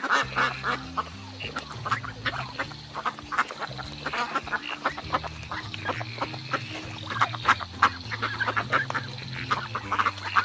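Ducks quacking, many short calls in quick succession, over a low steady hum that shifts in pitch now and then.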